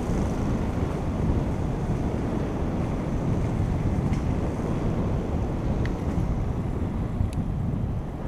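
Steady wind noise rushing over the microphone of a camera on a moving bicycle, with a few faint clicks in the second half.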